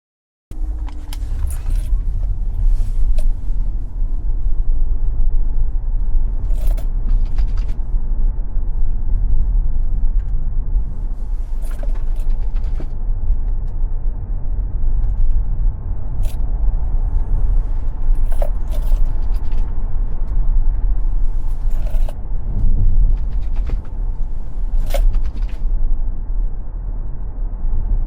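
Tesla Model X driving on a racetrack: a steady low road and tyre rumble, with scattered short knocks and clicks. It starts abruptly about half a second in.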